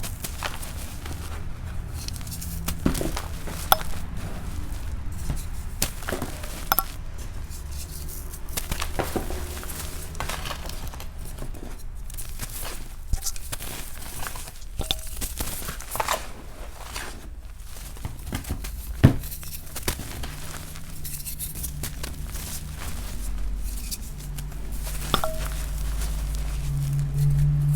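Soft blocks of gym chalk crumbling between fingers: an irregular scatter of small crisp snaps and crackles, over a steady low hum that grows louder near the end.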